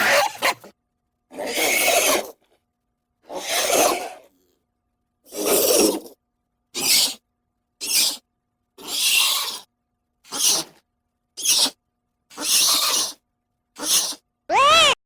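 Creature sound effects for an abyssal halosaur: about a dozen short, breathy, raspy hisses with silences between. Near the end comes a pitched call that rises and falls.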